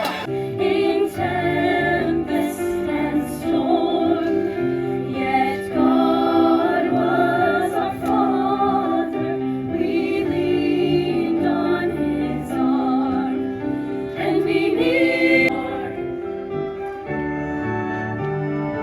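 Choir singing slow, sustained chords as soundtrack music; the upper part drops out and the sound thins about three-quarters of the way through.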